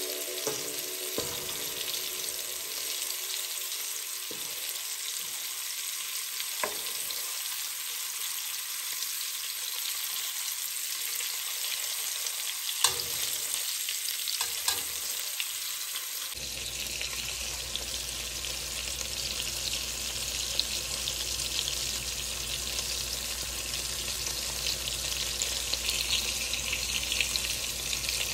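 Flour-coated meatballs sizzling as they fry in oil in a pot, a steady hiss, with a few sharp clicks of a metal fork against the pot in the first half as they are turned.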